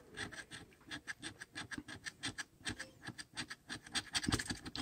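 A coin scraping the coating off a scratch-off lottery ticket in quick repeated strokes, about four a second, coming faster and a little louder near the end.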